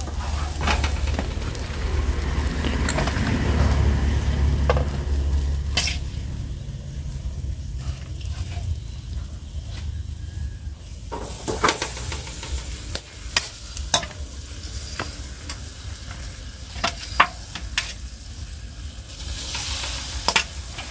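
Pieces of boiled, marinated pig head sizzling on a wire grill over charcoal, with sharp clicks of metal tongs against the grill and the bowl as they are turned and basted. A low rumble runs through the first few seconds.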